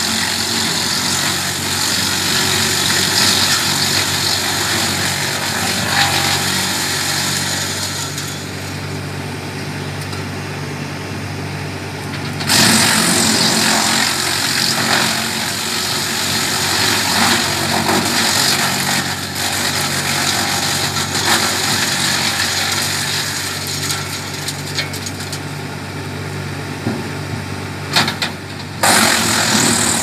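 Hasatsan DP 700 tractor-driven wood chipper shredding tree branches, over the steady running of the tractor engine. The loud grinding of wood eases off twice for a few seconds, about a third of the way in and near the end, and each time comes back suddenly as the next branch is fed in.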